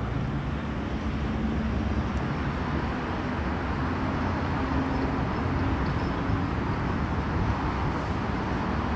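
Steady low rumble of motor-vehicle noise, even in level throughout with no clear starts or stops.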